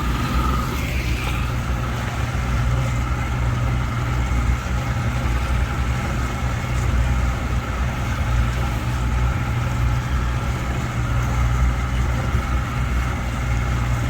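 Vehicle engine running steadily with a low rumble during a ride.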